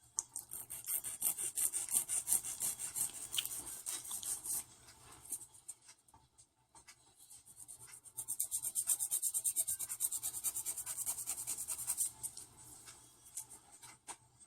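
Hand nail file rasping over a freshly built-out builder-gel nail to shape it, in two runs of quick back-and-forth strokes with a pause of a few seconds between.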